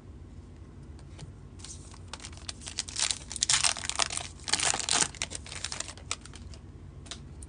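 Plastic wrapper of a 2023 Topps Heritage baseball card pack crinkling as it is opened and the cards are slid out, a run of crackling rustles loudest around the middle.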